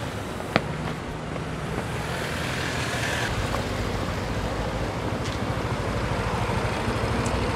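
City street traffic, with a vehicle engine running close by that grows louder over the last few seconds. A single sharp click about half a second in.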